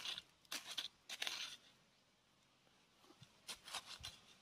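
Short crunching scrapes of a digging tool raking through dry creek-bed sand: three quick strokes, a pause, then a few fainter ones.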